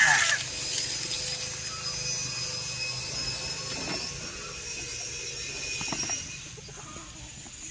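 Soft knocks and rustling as bilimbi fruits are plucked and dropped into a plastic bucket, over a steady high hiss. A rooster's crow trails off right at the start.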